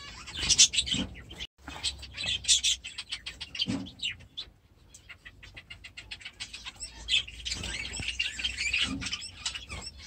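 A small flock of zebra finches calling, many short high chirps overlapping, thinning out in the middle and busiest near the end.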